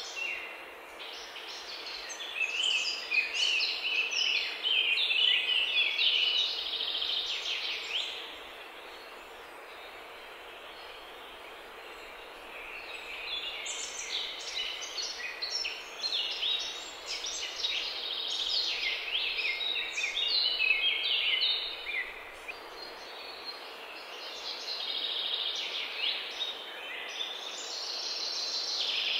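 A songbird singing in long bouts of rapid, high twittering notes, pausing twice, over a faint steady hum.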